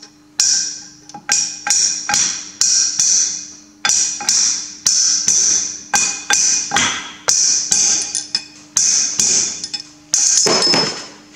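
Steel hammer tapping a heated roller bearing down a tractor rear axle shaft: steady metal-on-metal taps about two to three a second, each with a high ringing note. The bearing is binding on a burr or high spot on the shaft and has to be driven home.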